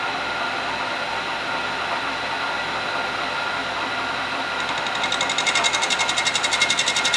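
Milling machine end mill cutting across the end of an aluminum channel to square it up: a steady cutting noise with a high whine. From about five seconds in it turns into a fast pulsing that grows louder.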